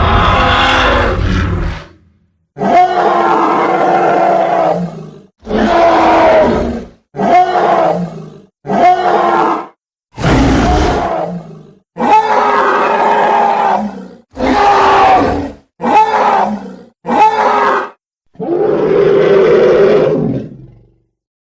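Animated-film creature roars and growls for a cartoon wildebeest character, played one after another as separate clips. There are about eleven loud, growly calls, each lasting one to two and a half seconds, with short silent gaps between them.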